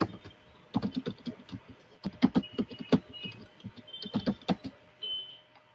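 Typing on a computer keyboard: a quick, irregular run of key clicks that thins out near the end.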